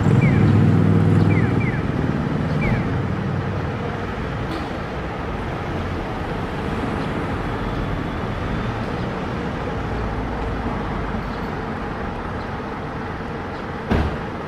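Street traffic at a junction. A motor scooter's small engine passes close at the start and fades over about two seconds, then cars and an approaching bus keep up a steady traffic noise. There is a single sharp knock near the end.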